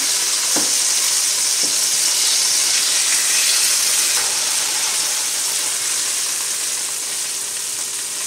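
Chicken breasts sizzling in hot olive oil in a frying pan, a steady hiss that eases a little toward the end, with a few faint knocks as the pieces are lifted out with tongs. The burner has just been turned off, but the oil is still hot enough to spatter.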